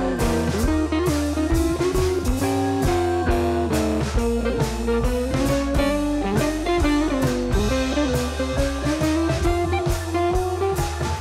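Instrumental background music: an electric-sounding guitar melody over a bass line and a steady drum beat.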